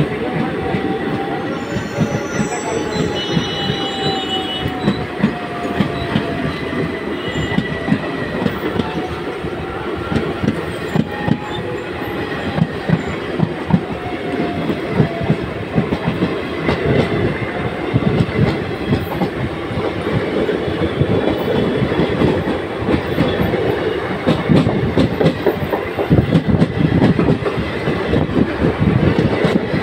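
Indian Railways ICF passenger coaches running past close by, a steady loud rumble and clatter of wheels over rail joints. A wavering high whine runs through the first dozen seconds.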